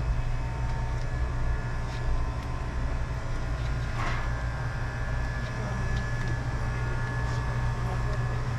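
Steady low mechanical hum of a grocery store's equipment, with a few faint clicks.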